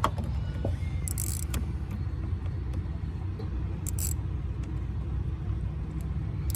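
Steady low rumble of an idling vehicle engine, with a few short clicks about one, four and six and a half seconds in.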